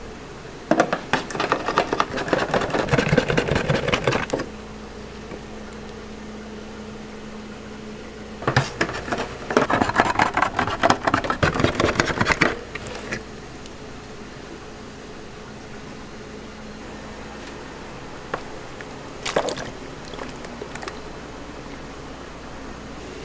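Can opener cutting around the lid of a large catering tin of peeled tomatoes: two runs of a fast clicking grind a few seconds each, the second starting about 8 seconds in, with a shorter burst of handling near the end. A steady low hum runs underneath.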